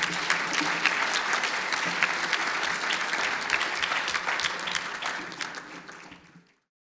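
Audience applauding, a dense patter of many hands clapping that fades near the end and then cuts off abruptly.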